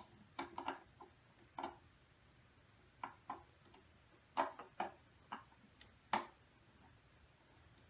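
Small LEGO plastic pieces clicking and knocking as a LEGO space shuttle model and its rocket stages are handled and pressed together by hand: about ten light, irregular clicks over six seconds.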